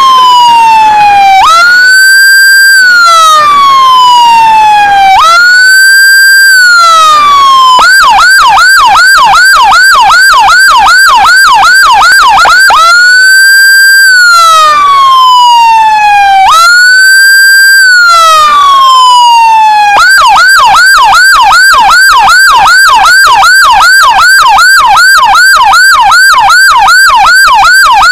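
Electronic emergency siren sounding loudly. It alternates between a slow wail, which climbs quickly, holds, then falls over a couple of seconds, and a fast yelp of about four sweeps a second, switching to the yelp about eight seconds in, back to the wail about five seconds later, and to the yelp again about twenty seconds in.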